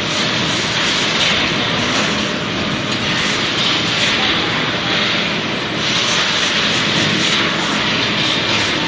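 Steady, loud machinery noise: a dense, even hiss with a faint low hum underneath and no breaks.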